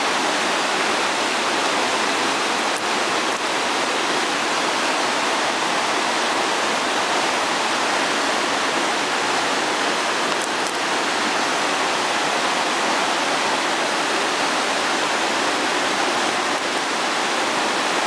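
River rushing through white-water rapids: a steady, unbroken noise of fast-flowing water.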